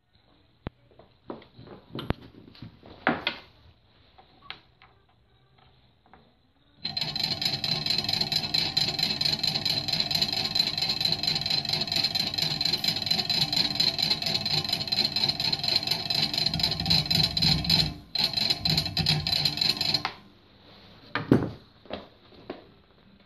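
Electric motor of a homemade jet drive running with its shaft and small propeller in the air: a steady whine that cuts out for an instant near the end, runs on briefly, then stops. Before it starts and after it stops there are scattered clicks and knocks as the power wires are handled.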